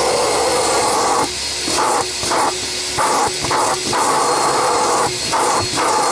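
Loud, steady rush of air, its tone dipping briefly again and again.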